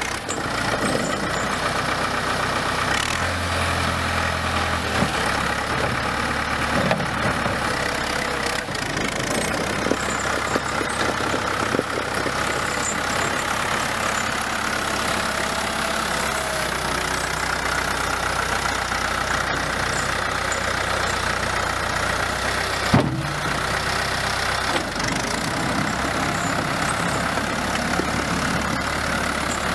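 1976 Valmet 702 tractor's diesel engine running steadily as it pushes snow with its front loader bucket, with one sharp knock about three quarters of the way through.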